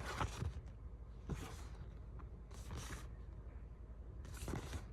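Paper and card rustling as a folding printed insert is handled and turned over, in four short bursts.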